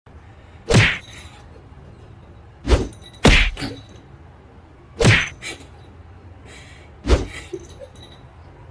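Five loud, sudden thumps at uneven intervals over a steady background hiss, two of them close together about three seconds in.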